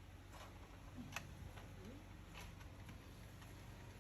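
A few faint, scattered ticks and light clicks over a low steady hum; the sharpest click comes just over a second in.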